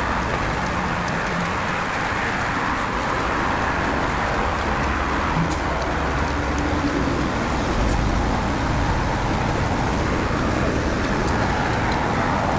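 Steady road-traffic noise, with the low rumble of a passing vehicle about two-thirds of the way through.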